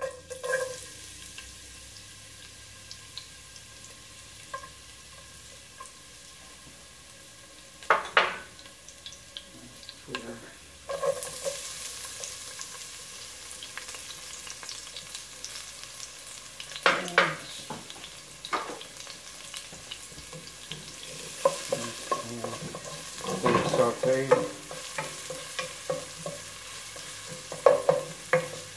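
Chopped garlic sizzling in hot vegetable oil in a non-stick pot, the hiss growing stronger about a third of the way in as it takes the heat. A few sharp knocks break through, and in the later part a wooden spoon stirs and scrapes the garlic around the pan.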